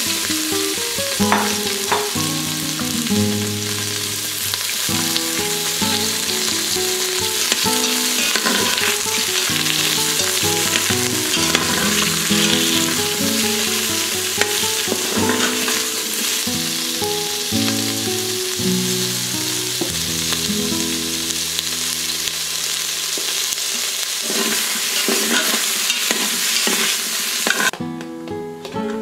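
Bell pepper pieces sizzling in hot oil in a stainless steel Instant Pot inner pot while a spatula stirs them. The sizzling stops suddenly near the end.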